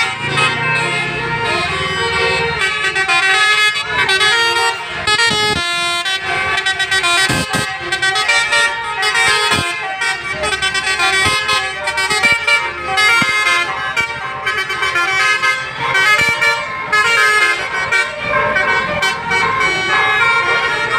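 Basuri multi-tone musical air horns (telolet horns) on a tour bus playing a fast-changing tune, note after note without pause.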